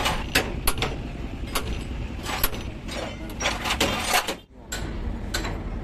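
Irregular sharp metallic clinks and knocks from tools and parts being handled on a truck's front-axle steering knuckle, over a steady low rumble.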